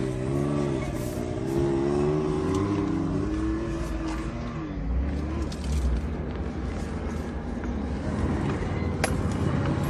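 Off-road vehicle engine running and revving, its pitch rising and falling for the first five seconds or so, then giving way to a rougher, unpitched rumble with a few scattered clicks.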